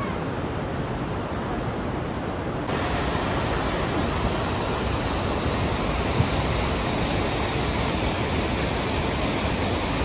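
The rush of Iguazu Falls' cascades, a steady dense noise of falling water. About three seconds in it changes abruptly to a slightly louder, brighter rush.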